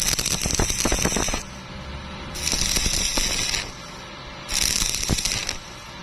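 Stick welding arc crackling and sizzling in three short bursts of about a second each, with brief pauses between them, as in a row of tack welds.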